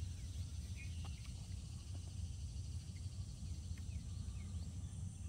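Outdoor waterside ambience: insects chirring steadily in a fine rapid trill, with a few faint bird chirps, over a low steady rumble.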